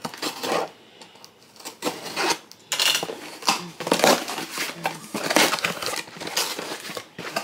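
Paper and cardboard packaging being handled and opened by hand: irregular rustling and crinkling bursts.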